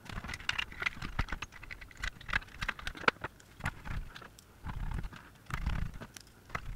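Screws and TV parts being handled on a workbench: a run of irregular light clicks, taps and knocks, with some low rubbing as pieces are moved about.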